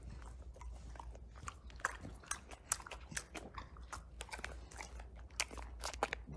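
English bulldog chewing and smacking on a dog treat: a string of quiet, irregular crunchy clicks of the mouth and teeth.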